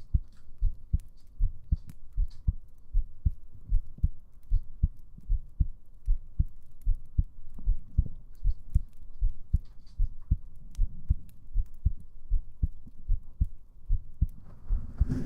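A person's heartbeat heard close up through a binaural microphone: a steady rhythm of short, low thumps. A brief rustle near the end.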